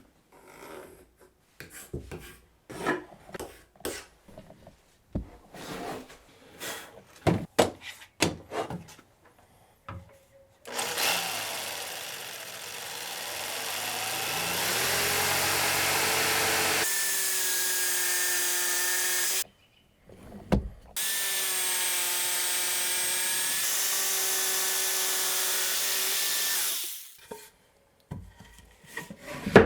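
Pine boards knocked and handled for about ten seconds, then a power tool runs on the wood in two long runs with a break between them. The tool speeds up with a rising whine early in the first run and then holds a steady whine.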